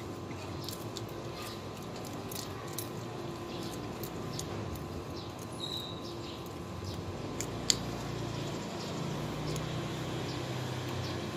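Two kittens chewing shrimp shells, with small irregular crunching clicks throughout and one sharper click about two-thirds of the way through.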